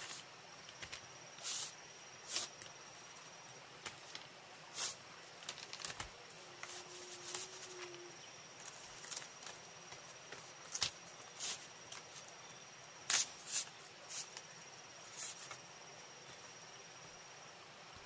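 A steady high-pitched insect trill, with scattered sharp clicks and knocks.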